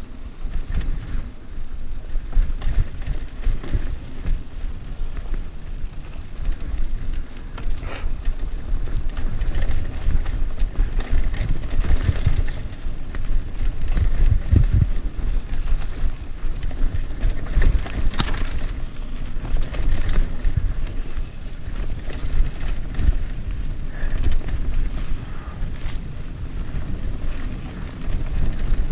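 Mountain bike riding fast downhill on a dirt trail: a steady heavy rumble from tyres on the ground and wind on the microphone, with scattered sharp clicks and rattles from the bike over bumps.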